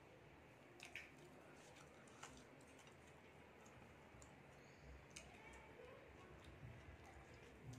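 Near silence with a few faint, scattered clicks of eating by hand: chewing, and fingers working biryani rice on a plate.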